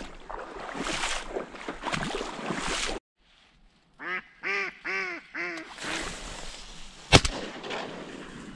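An even rush of wind and reed noise, then after a cut a duck quacks four times in quick succession. About a second and a half later comes one loud shotgun shot.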